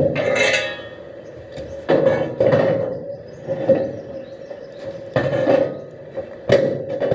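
Metal pieces being struck and clanking about six times at irregular intervals, each hit ringing briefly, over a steady hum.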